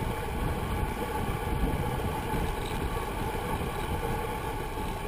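Steady rush of wind and road noise on a handlebar-mounted GoPro, from a road bike at racing speed of about 32 mph.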